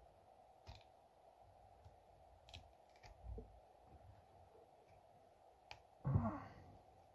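Faint scattered clicks and light scrapes of a thin metal pick working at the edge of the metering diaphragm of a 1949 McCulloch 1225A chainsaw carburetor. A louder, brief handling sound comes about six seconds in.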